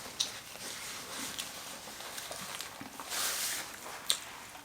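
Close-up eating sounds of someone chewing a sandwich: soft wet mouth noises with a few sharp clicks, and a brief rustle about three seconds in.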